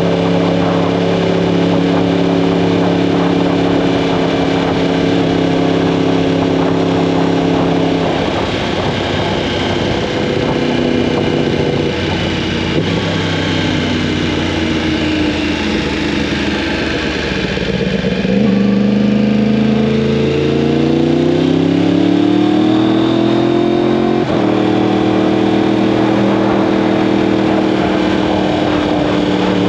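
2015 Yamaha R1M's crossplane inline-four through an Akrapovic exhaust, heard from the moving bike over a steady rushing noise. It holds a steady cruising note for several seconds, then the revs waver and drop. They climb steadily for about six seconds and break off at a gear change, after which the engine holds a steady note again.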